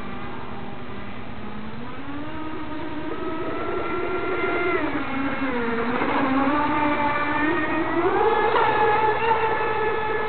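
Electric RC model powerboat, a King of Shaves P1 on a 5S LiPo pack with an X438 propeller, whining as it runs across the water. The pitch climbs about two seconds in, drops about halfway through, then climbs again and is loudest near the end.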